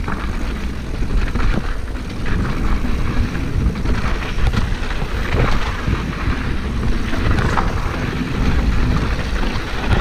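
Mountain bike rolling down a rocky dirt trail: wind buffets the microphone over a steady rumble of tyres on gravel, with frequent irregular clicks and knocks from the bike rattling over stones.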